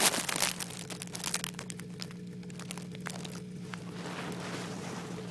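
Rubbing and crinkling handling noise on the microphone, loudest in the first half second and thinning to scattered clicks over the next two seconds. Under it runs a steady, unchanging low engine hum.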